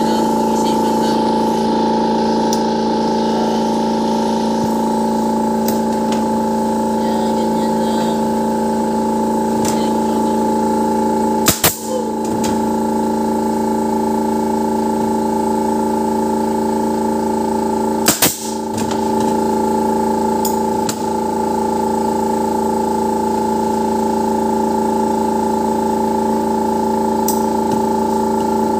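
A steady hum made of several unchanging held tones, broken by two sharp clicks about seven seconds apart near the middle.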